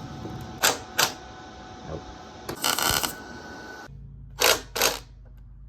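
Sharp metallic clicks and clinks of tools and metal parts on an air-cooled Volkswagen Beetle engine as a broken exhaust stud is worked on: two clicks under a second in, a short half-second rasping burst around the middle, then two more clicks.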